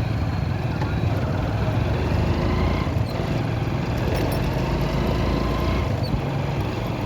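Steady engine and road noise of a motorcycle being ridden.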